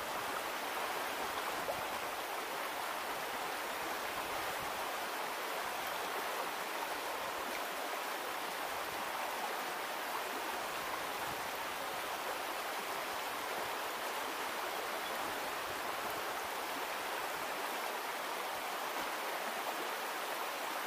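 Shallow gravel creek running steadily, an even, unbroken rush of flowing water.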